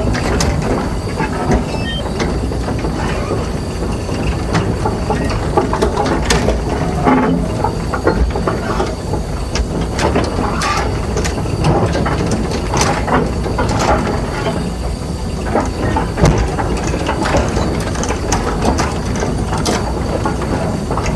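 Komatsu tracked hydraulic excavator with its diesel engine running as it moves, steel track links and undercarriage clanking and clicking irregularly over the steady engine rumble.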